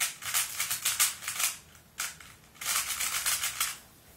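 Plastic 3x3 Rubik's cube turned in quick runs of moves, the layers clacking as they turn: two flurries of rapid clicks about a second long each, with a single click between them.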